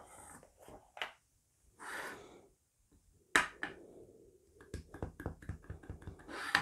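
Clear acrylic stamp block tapped quickly and lightly on a Memento ink pad to ink the rubber stamp, about six taps a second for a second and a half. A sharp click comes before the taps as the ink pad is handled.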